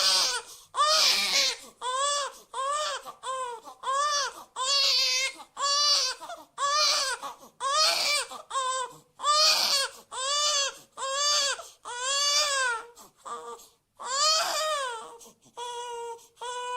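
Baby crying in a steady run of short wailing cries, about one and a half a second, each rising and falling in pitch. The crying grows weaker near the end.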